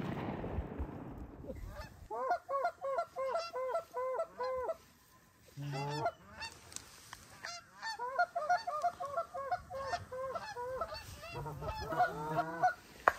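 Quick runs of goose honks and clucks, several a second, in two bouts with a short pause between. At the start the echo of a gunshot dies away.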